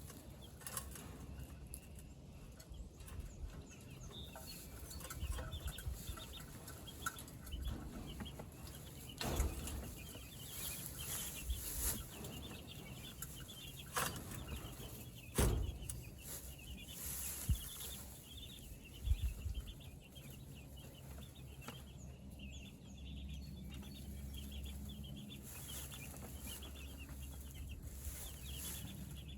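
A flock of meat chickens peeping and clucking steadily, with several sharp knocks and thumps in the middle of the stretch.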